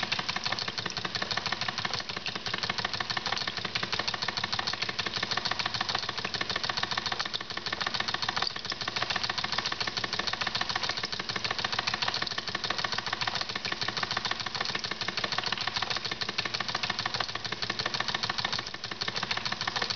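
Wilesco model steam engine running on about 2 psi of steam and driving a belt-driven beam water pump, making a fast, steady, even clatter.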